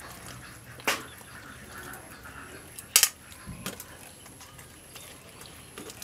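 Metal ladle and tongs clicking against each other and the plastic mixing bowl while chicken pieces are stirred in batter: two sharp clicks about two seconds apart, the second louder.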